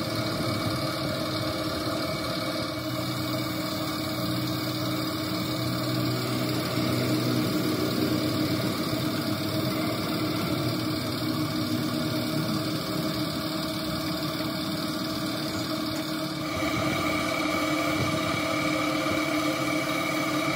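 An engine running steadily at a low, even speed. About sixteen seconds in the sound changes, the higher part filling in and growing a little louder.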